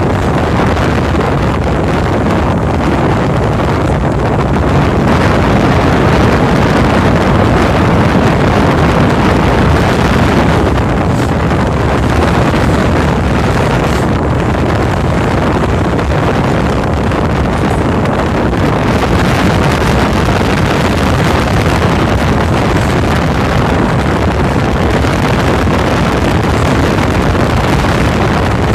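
A cruise boat's engine running steadily while under way, mixed with wind buffeting the microphone.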